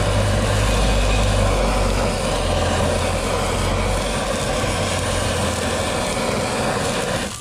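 Handheld butane canister blowtorch burning with a steady, loud hiss as its flame plays on a beef marrow bone, then shut off near the end.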